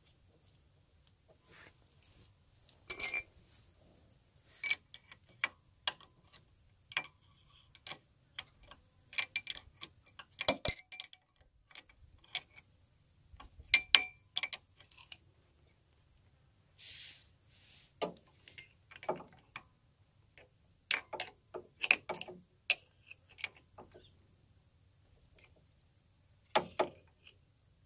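Irregular metallic clicks, clinks and knocks of tools and parts being handled during mechanical work, some sharp and loud, over a faint steady high whine.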